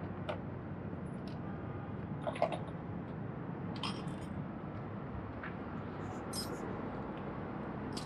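Steady workshop background noise with a handful of light clicks and taps scattered through it, from hands and tools working on the motorcycle's front end during the auxiliary light installation.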